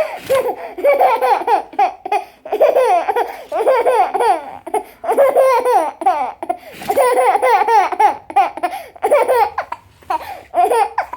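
A young child laughing with hiccups, in repeated high-pitched bursts of laughter separated by short breaks.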